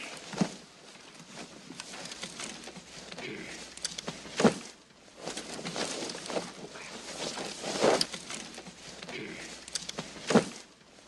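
A man snoring, with a sharp, loud snort about every three to four seconds.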